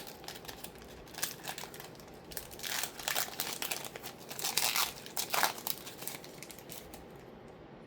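Trading cards and their foil pack wrapper being handled: irregular crinkling and rustling, louder about three and five seconds in.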